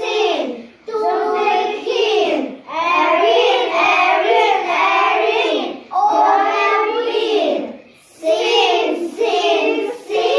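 Group of young children chanting the English tongue twister "A ring, a ring, a ring for the king, sing, sing, sing to the king" in unison, in a sing-song rhythm with short pauses between phrases.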